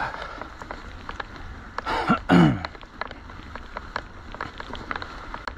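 A mountain biker's strained groans of effort: two short moans about two seconds in, the second one sliding down in pitch, over a steady patter of small clicks.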